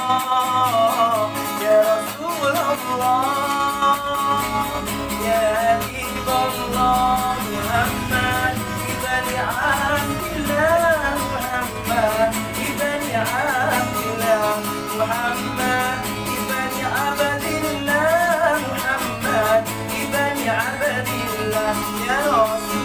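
A man singing a sholawat, an Islamic devotional song, in a wavering, melismatic voice, accompanied by a strummed acoustic guitar.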